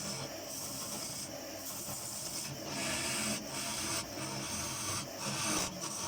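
Sanding on a wood lathe: abrasive rubbing against the spinning maple workpiece in repeated strokes, surging and easing about once or twice a second, over the lathe's steady low hum.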